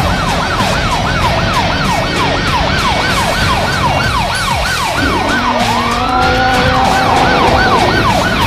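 Electronic siren yelping in quick falling sweeps, about three a second. About five seconds in, a second, slower rising wail joins over a steady hum of tones.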